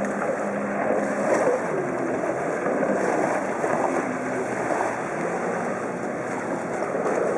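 Jet ski running at speed close by, its engine hum mixed with the steady rushing hiss of spray and churned water.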